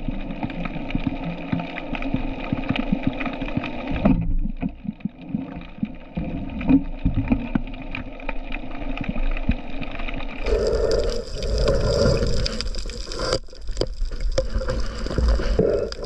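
Muffled underwater noise from a diving camera, with many scattered clicks and knocks; it changes abruptly about four seconds in and again about ten seconds in, when a brighter hiss sets in.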